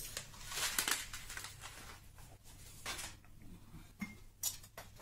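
Glass jars and dishes clinking and knocking as they are handled on a kitchen table: several separate short knocks with some rustling between them, the sharpest about four and a half seconds in.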